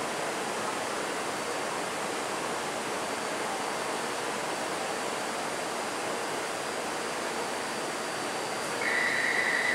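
Steady rushing hiss of air-conditioning and ventilation inside a stopped metro car with its doors open. About a second before the end a steady high-pitched tone starts.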